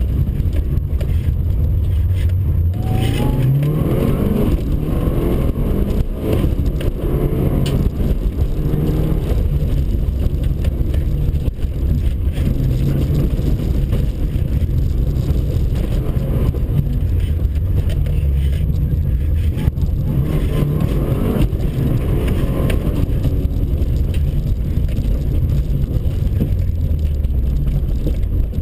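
Mitsubishi Lancer Evo 5's turbocharged 2.0-litre four-cylinder engine heard from inside the cabin, under hard acceleration. Its pitch climbs sharply several times as it revs up through the gears, over a steady low rumble of road noise.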